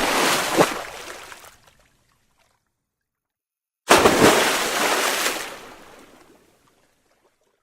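Two separate bursts of water splashing and sloshing, each starting suddenly and dying away over about two seconds. The second comes about four seconds in, with dead silence between them.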